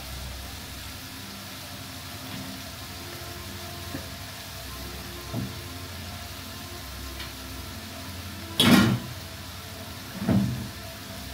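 Chopped onions and whole spices sizzling in oil in a large aluminium pot, a steady hiss, with a few short knocks, two louder ones near the end.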